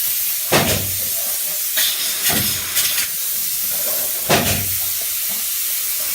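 A steady hiss with several short, dull thumps at uneven intervals.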